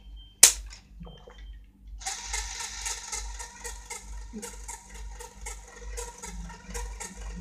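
Small electric motor of a Lego Technic model running through plastic gears, a steady mechanical whir with rapid regular clicking, after a single sharp click about half a second in.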